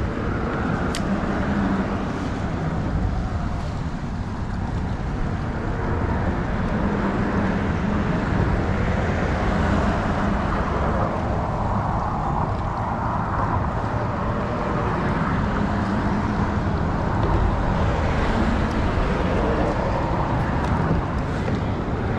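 Steady wind noise buffeting the microphone, a constant low rumble with a rushing hiss above it.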